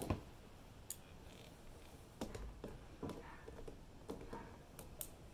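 Faint clicks and rubbing of hand work as a rubber fuel hose is pushed onto a clear plastic inline fuel filter, with needle-nose pliers handled at the hose clamp in the second half; a handful of short, light clicks.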